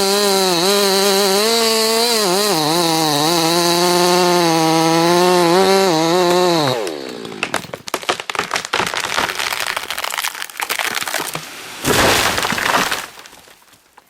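Chainsaw running at full throttle in a cut, its pitch dipping slightly under load, then winding down about seven seconds in. Irregular cracks and snaps follow, with a short rush of noise near the end.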